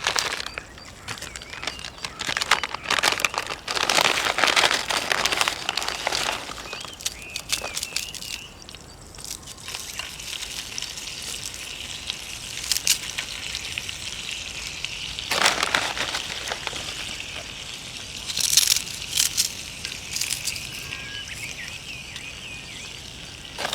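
Bursts of crinkling, rustling handling noise, heaviest over the first few seconds, again around the middle, and in a cluster a few seconds later. Small birds chirp faintly throughout.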